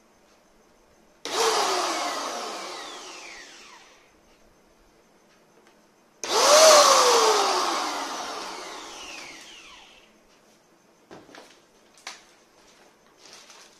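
Buildskill BPS2100 Pro 750-watt HVLP paint sprayer's motor switched on twice in short bursts. Each burst cuts in suddenly and then winds down with a falling whine over about three seconds. A few light clicks follow near the end.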